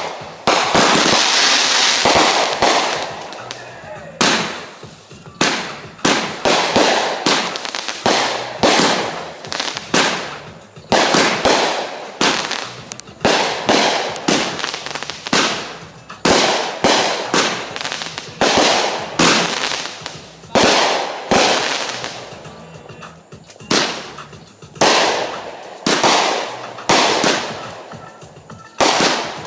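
Consumer fireworks going off in a steady string, sharp reports about one a second, each fading out before the next, with a denser cluster of bursts in the first two seconds.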